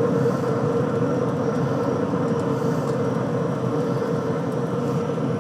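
Steady whir of a Pit Boss pellet grill's combustion fan running, a constant hum over a noisy rush.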